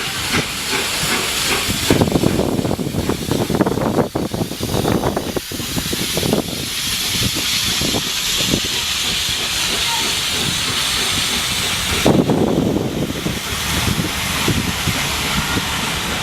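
Steam locomotive 60163 Tornado, a three-cylinder LNER Peppercorn A1 Pacific, working away from a station stop: a rapid chatter of exhaust beats under a continuous steam hiss. The hiss grows stronger for several seconds near the middle, then the heavier low running sound comes back.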